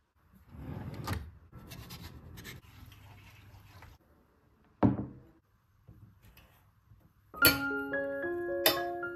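Soft rustling and handling noise with small clicks, then a single knock as a ceramic serving bowl is set down on a wooden table about five seconds in. Near the end, a light music track of ringing single notes starts.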